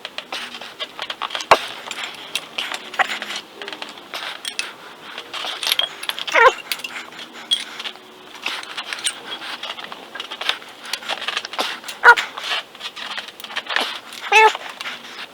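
Wrench work on the engine: a run of metal clicks and clinks from hand tools, with a few short squeaks that waver in pitch, two or three of them, one about twelve seconds in among the loudest moments.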